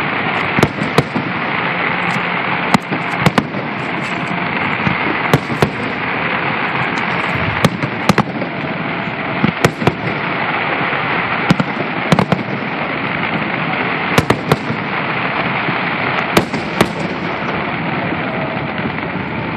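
Aerial fireworks shells bursting in sharp bangs, mostly in pairs about every two seconds, over a steady hiss. The bangs stop a few seconds before the end.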